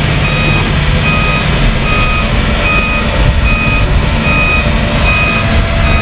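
An electronic warning beeper on heavy construction machinery sounds a steady string of short beeps, a bit more than one a second, over a low engine rumble.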